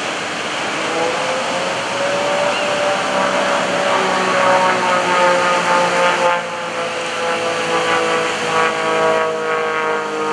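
Pitts S-1S aerobatic biplane's piston engine and propeller droning overhead. The drone comes in about a second in, rises a little in pitch, then slowly falls as the plane passes. A steady rushing of surf and wind runs underneath.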